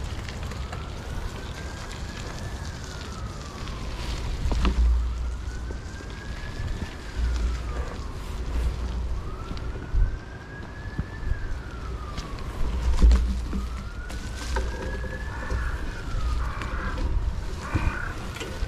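A siren wailing: one tone climbs slowly, then falls back a little faster, about four times, roughly every four seconds. Wind buffets the microphone under it.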